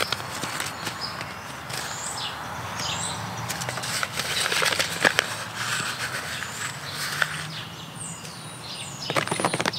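A paper seed packet rustling and crinkling as it is opened and handled, with fingers pushing seeds into loose potting soil. Small birds chirp now and then in the background.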